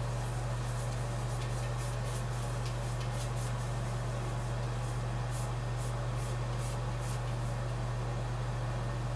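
Cat pawing and rubbing against the side of an empty bathtub, making short scratchy squeaks in two clusters: one over the first few seconds and another about five to seven seconds in. A steady low hum runs underneath.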